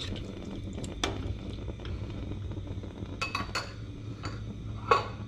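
Plastic spatula scraping and tapping against a nonstick frying pan as diced shrimp and fish are stirred, over a light sizzle, with a sharper clack near the end.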